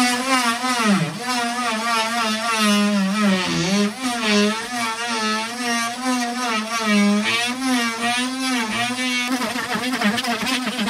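Dremel Multi-Max oscillating multi-tool running under high load while its aggressive blade cuts into 3/4-inch plywood: a loud motor whine whose pitch wavers up and down, dipping briefly about a second in and again a few seconds later. About nine seconds in, the whine turns rougher and less clear.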